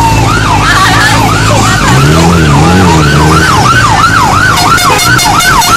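Electronic siren on a motorcade escort vehicle sounding a fast yelp, its pitch sweeping up and down about three times a second. Motor vehicle and motorcycle engines run underneath.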